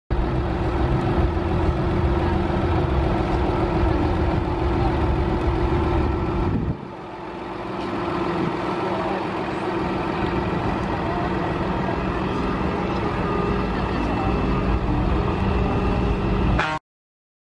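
Heavy truck diesel engine idling steadily with crowd chatter around it. About a third of the way in the engine sound drops away suddenly and a noisier mix of engine and voices takes over, then everything cuts off abruptly just before the end.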